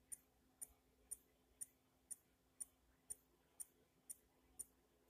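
Medtronic insulin pump filling its tubing with insulin, giving faint, even clicks about twice a second.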